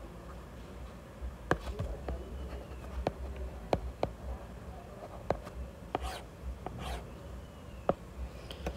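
Stylus writing on a tablet screen: a string of sharp, irregular taps and clicks, with a couple of short scratchy strokes about six and seven seconds in.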